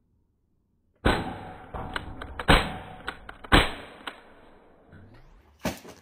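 A series of sharp impact sounds starting about a second in: three loud cracks roughly a second apart, smaller knocks between them, and one more sharp knock near the end.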